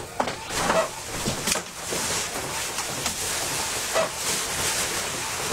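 Rustling of a padded nylon jacket as it is pulled on, with scattered brief scuffs over a steady hiss.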